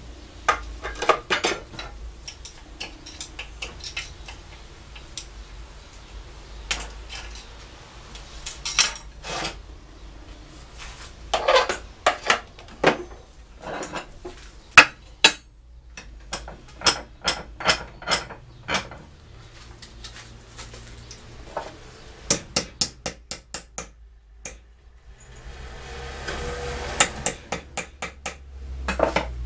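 Steel parts and hand tools clinking and clattering on a steel workbench and bench vise, with irregular knocks and a quick run of small hammer strikes, then more rapid hammer taps on a piece held in the vise near the end.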